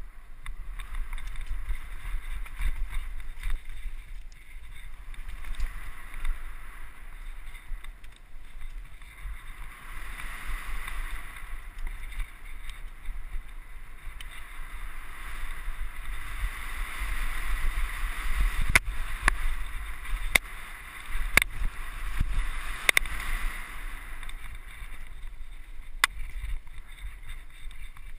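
Wind rushing over a handlebar-mounted camera's microphone and tyre rumble from a mountain bike riding fast down rocky, gravelly trail. A cluster of sharp knocks about two-thirds through, and one more near the end, as the bike clatters over rocks.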